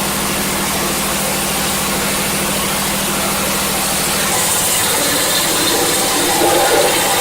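Coconut husk decorticator running: a steady motor hum under a broad mechanical rushing noise, which grows slightly louder and hissier from about four seconds in.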